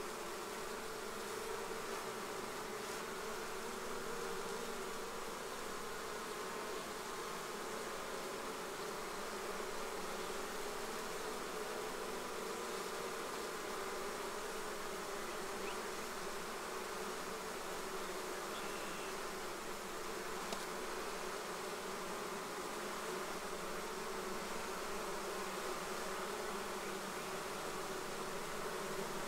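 A swarm of honey bees buzzing steadily in the air as they move into a hive.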